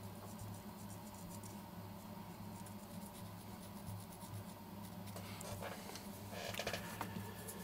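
Faint scratching and light ticking of a thin wooden stick spreading resin over a glider's throwing peg, with a few louder scrapes near the end, over a steady low hum.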